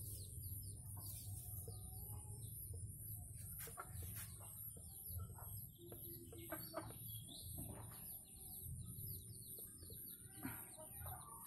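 Red junglefowl calling faintly: quick short chirps throughout and occasional clucks, over a steady high-pitched hiss.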